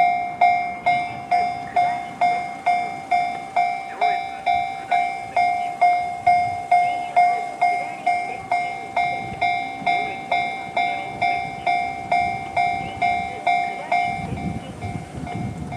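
Japanese railway level-crossing warning bell in the JR standard electronic tone, dinging steadily about twice a second. Near the end the dinging turns quieter and the low rumble of an approaching 211 series electric train comes in.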